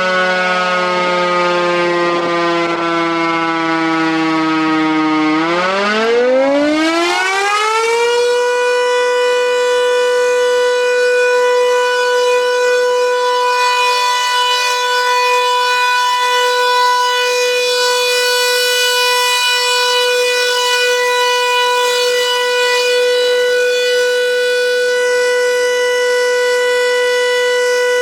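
Klaxon CS8 siren sounding: for about five seconds its pitch sinks slowly, then it climbs quickly to a steady high tone that holds for the rest of the time. One of its shutters is jammed shut, which the uploader says gives a muffled noise.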